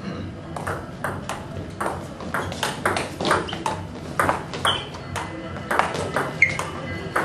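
Table tennis rally: the celluloid ball clicking back and forth off the rubber-faced bats and the table top. It is a long run of sharp clicks, about three or four a second, starting about half a second in.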